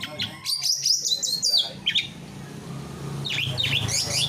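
Songbird singing in quick runs of sharp, high chirping notes, first about half a second in and again near the end, over a low steady hum.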